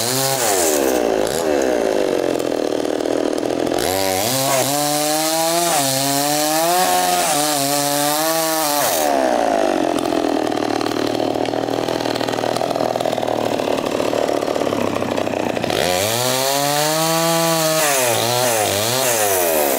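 Two-stroke chainsaw running, revved up and down again and again, with long stretches held at high speed.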